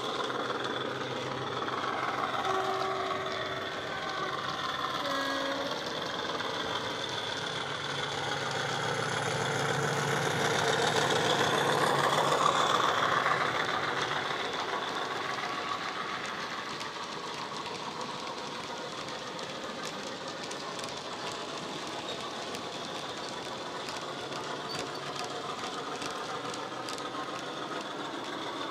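Hornby Class 50 model locomotive's DCC sound decoder playing a Class 50 diesel engine sound through an EM1 speaker and a second small speaker, growing louder to a peak about halfway through as the model passes, then easing off. Small wheel clicks from the model wagons rolling over the track run under it in the second half.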